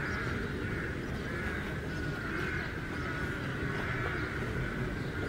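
Birds calling continuously in the background, a steady chorus of wavering calls, over a low steady rumble of outdoor noise.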